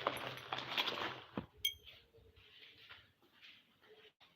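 Noisy rustling for about a second and a half, then a single clink that rings briefly, as of hard tableware being knocked.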